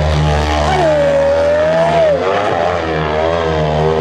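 Hill-climb dirt bike engine running hard at high throttle as it climbs a steep dirt slope, its pitch rising and falling, with a dip about two seconds in before it climbs again.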